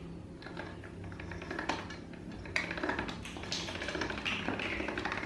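Hand-cranked stainless steel pasta machine clicking and rattling as a sheet of dough is cranked through its rollers, with irregular ticks.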